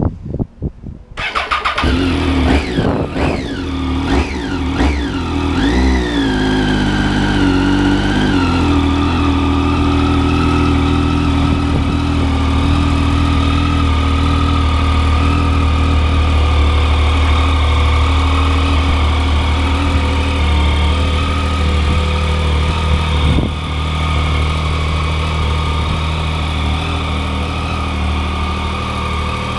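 2011 Triumph Street Triple 675's three-cylinder engine starting about a second in, then revved several times in quick blips before settling to a steady idle.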